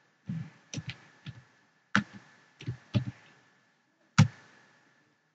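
Computer keyboard keystrokes typing a word: a handful of short, uneven taps, the loudest about four seconds in.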